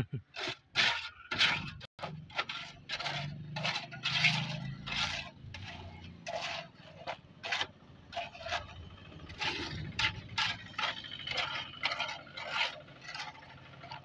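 Steel trowel scraping and slapping across wet concrete, many short irregular strokes as the surface is smoothed and levelled.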